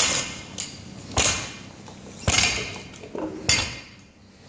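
Metal clanks from a barbell being loaded: bumper plates and collar knocking against the bar's steel sleeve. There are four sharp clanks about a second apart, each ringing briefly.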